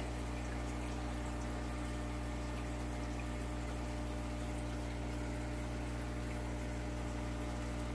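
Steady electric hum of aquarium equipment with bubbling water under it, even and unchanging.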